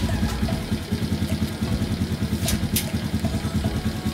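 Suzuki motorcycle engine running steadily with a quick, even pulse, the bike on its stand in second gear so the rear wheel and chain turn for chain cleaning. Two short hisses come about two and a half seconds in.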